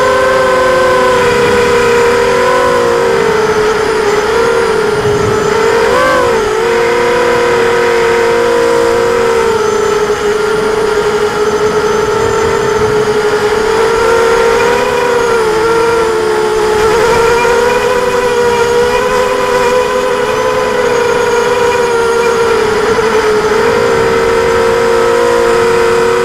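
ImmersionRC Vortex quadcopter's electric motors and propellers whining in flight, several close tones that rise and fall together as the throttle changes, with a quick swoop in pitch about six seconds in.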